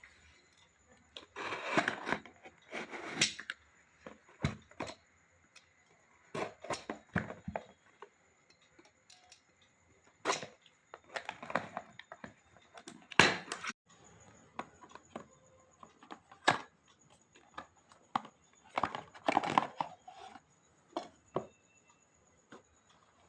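Packaging being torn open and handled: irregular bursts of tearing and crinkling, with scattered sharp clicks and short pauses between.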